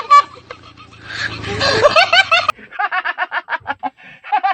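A person laughing: a short loud burst at the start, a rising swell, then a run of quick, regular ha-ha bursts, about five a second.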